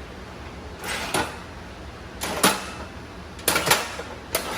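A handful of short scrapes and knocks from handling the cardboard-topped ironing-board ramp as it is moved and adjusted.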